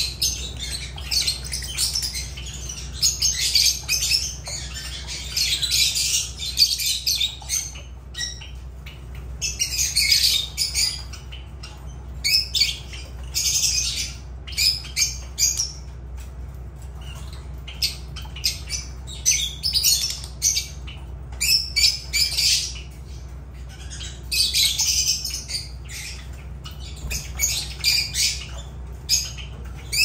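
Lovebirds (Agapornis) squawking and chattering, shrill harsh calls coming in bursts of a second or two with short gaps between.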